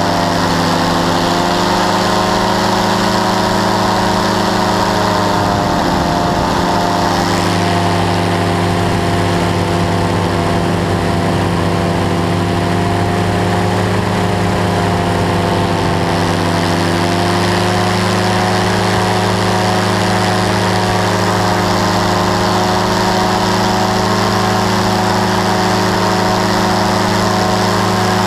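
Powered parachute's engine and propeller running steadily in flight, heard loud from the frame, with the pitch easing down and back up slightly a couple of times.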